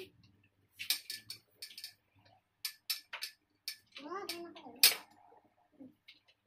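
Sharp clicks and knocks of hard plastic as a gaming chair's caster wheel is handled and pushed into a leg of the black five-star base. The loudest snap comes near the end, just after a man's short voiced sound.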